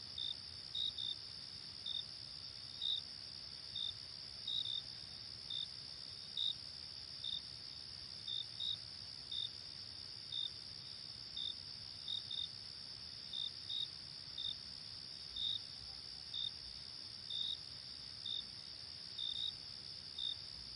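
Crickets chirping: a steady high trill with short, louder chirps over it, about one or two a second at uneven spacing.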